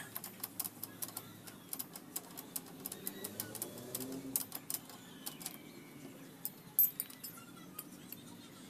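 A hand tool clicking in quick, irregular strokes as the rear axle and chain adjuster bolt of a Honda XRM 125 swing arm is turned, like a socket ratchet being worked back and forth.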